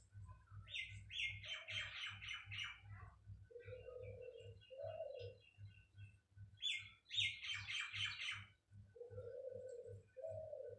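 Birds chirping in two quick bursts of rapid high notes, with a dove cooing in between, two-note phrases twice. A faint low pulsing hum runs underneath.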